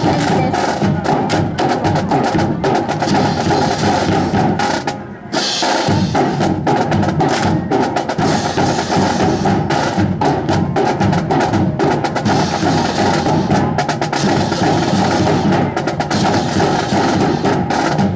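Marching drums (snare and bass drum) keep a steady beat, mixed with the sharp clacks of drill rifles being slapped and handled. The sound drops out briefly about five seconds in, then comes back with a sharp hit.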